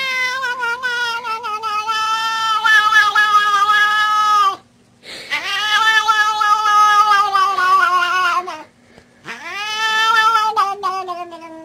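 A cat yowling in three long, drawn-out calls with short breaks between them, each sliding down in pitch at its end.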